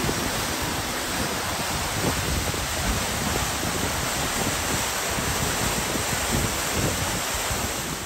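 Seven Falls waterfall, water pouring steadily down a steep rock face.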